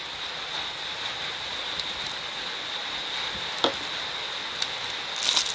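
Steady hiss with a faint high whine, broken by a sharp metallic click about two-thirds through and a quick run of clicks near the end, from a Zippo lighter being handled.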